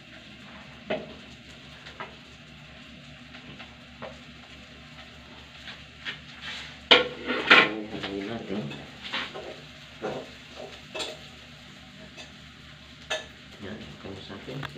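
A metal spoon scraping and knocking against an aluminium pot as cooked rice is scraped in from a plate and stirred for fried rice, with scattered sharp knocks and a loud burst of clatter about seven seconds in.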